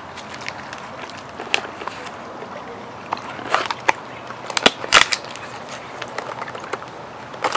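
Cardboard mailing box being handled and cut open with a pocket knife: scattered scrapes, taps and rustles, with a cluster of sharper clicks and scrapes about halfway through.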